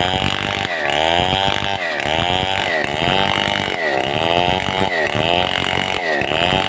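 Stihl 070 two-stroke chainsaw running at high revs while cutting wood. Its engine pitch sags under load and recovers over and over, about once every three-quarters of a second.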